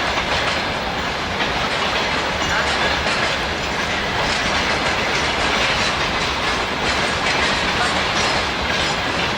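Steam train running on the rails: a steady, dense noise with scattered faint clicks.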